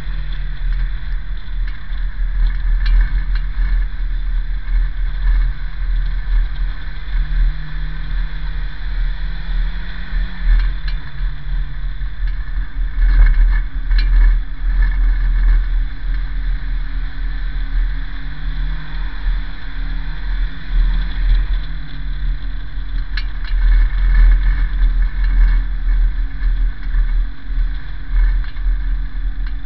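Banger race car heard from inside its stripped-out cabin: the engine runs under load with a heavy rumble, its pitch rising and falling as the driver accelerates and lifts. A few sharp knocks come through midway and again later.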